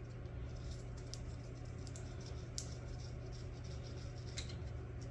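A steady low hum with a few faint, light clicks, about two and a half and four and a half seconds in, as engine parts and tools are handled during connecting-rod removal.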